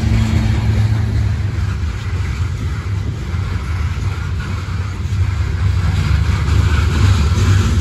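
Freight train of coal hopper cars rolling past, a loud, steady rumble of steel wheels on the rails.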